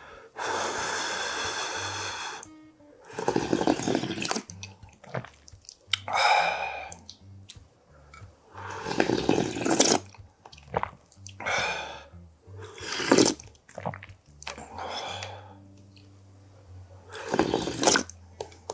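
Slurping of hot, spicy ramen broth sipped from a wooden ladle: a series of about seven separate slurps with short gaps between them, the first the longest. About six seconds in there is a short sound of the voice, like an 'ah' after a sip.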